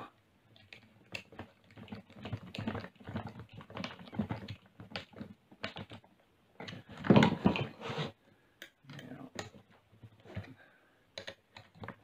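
Irregular small clicks and scrapes of a screwdriver turning the screw of a hose clamp, tightening it down over a rubber joiner hose. About seven seconds in there is a louder burst of handling noise.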